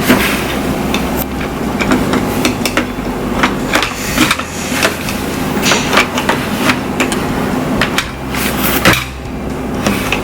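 Hard plastic toy playset pieces clicking and knocking together as they are fitted and slid into place, a string of irregular sharp clicks over a steady low hum.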